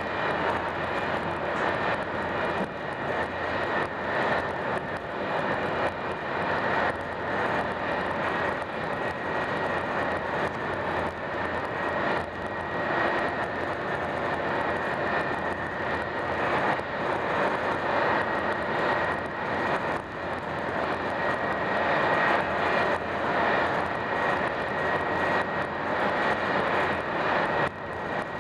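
Steady running noise of an Italo ETR 575 (Alstom AGV) high-speed train, heard from inside the passenger cabin while cruising at high speed. A steady high whine runs through it.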